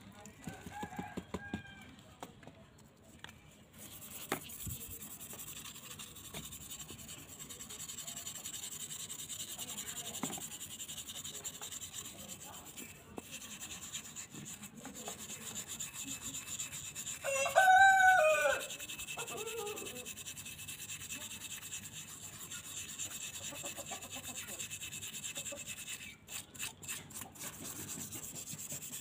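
Steady scrubbing as a rusty metal motorcycle pedal is worked over by hand, with a rooster crowing once, loudly, a little past the middle.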